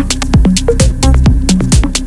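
Electronic dance music soundtrack: a steady kick-drum beat a little over twice a second with hi-hats and a held bass line.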